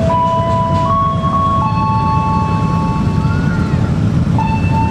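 A simple tune of clear held tones that step between a few pitches every second or two, over the low rumble of idling motorcycle and car engines.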